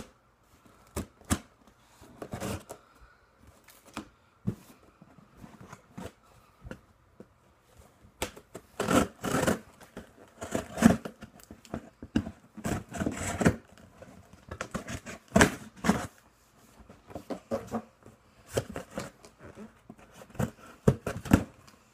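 Irregular rustling, scraping and clicking of a shoe box and its packaging being handled, with busier stretches and short quiet gaps.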